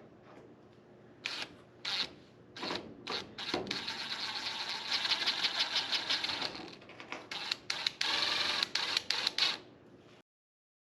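A power tool with a fast rattling pulse, run in several short bursts and then held for about three seconds, followed by more short bursts.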